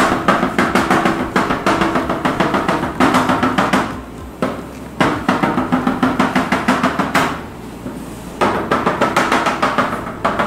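A plastic chocolate-bar mould rapidly tapped against the stone counter, about eight small taps a second in three runs, which works air bubbles out of the freshly poured chocolate and settles it to the bottom of the mould.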